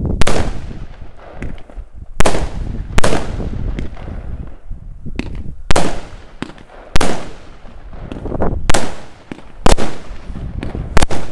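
Small consumer firework cake (a mini launcher of up to ten shots) firing in sequence: about eight sharp bangs, unevenly spaced a second or two apart, each trailing off in an echo.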